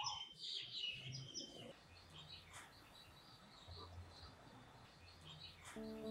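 Faint birds chirping, with a cluster of quick high chirps in the first second or so and then scattered chirps. Music comes in just before the end.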